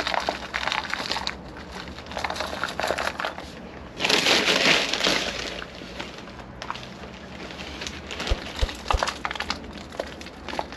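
Soil being scooped from a plastic bowl and filled by hand into the cells of a plastic seedling tray: a gritty rustling and crunching with small clicks, loudest in a rush about four seconds in.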